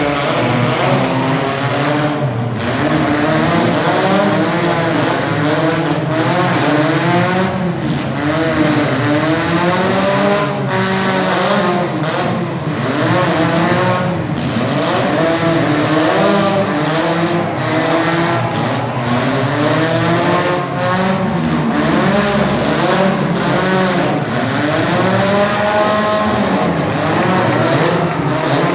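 Several demolition derby cars' engines revving hard at once, many pitches climbing and falling over one another without a break.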